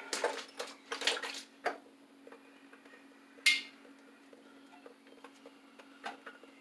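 Electrical cable and tools being handled at a steel breaker panel: rustling and scraping for the first second and a half, then one sharp metallic clink with a short ring about three and a half seconds in, followed by light scattered ticks and taps. A faint low steady hum runs underneath.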